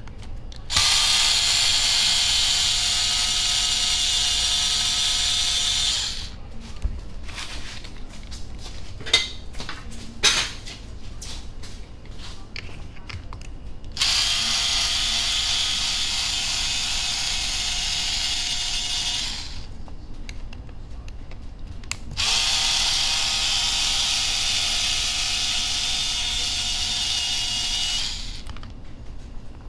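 Cordless electric screwdriver running in three steady whirring runs of about five seconds each, backing the center skid bolts out of an RC crawler's chassis. Between the first and second runs come light clicks and taps of handling.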